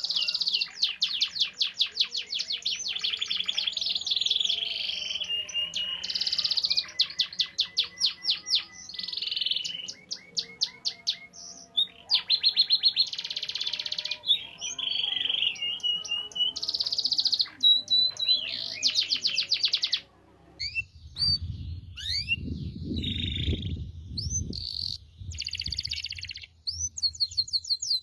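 Domestic canary singing a long, varied song of rapid rolling trills and chirps, phrase after phrase, thinning to shorter calls in the last third. A low rumbling noise sits under the song for a few seconds in that last third.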